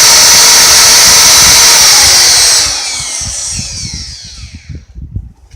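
A loud power tool motor running flat out with a hissing rush, then switched off about two and a half seconds in and winding down in falling pitch over the next two seconds. Scattered low knocks follow.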